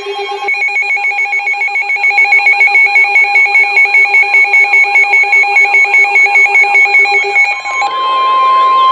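Weather alert radio receivers sounding their warning alarms together: layered steady electronic beeps and a warbling, siren-like tone, pulsing about four times a second. Near the end a steady, single-pitch weather radio attention tone takes over, marking a new warning being broadcast.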